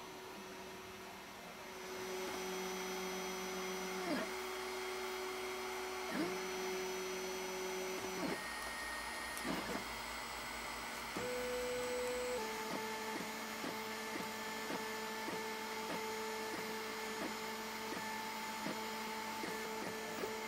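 Snapmaker 2.0 3D printer's stepper motors whining as the print head moves, each long move holding a steady pitch and sliding to a new pitch where it changes direction. About twelve seconds in, the motion turns into short, regular moves roughly every half second.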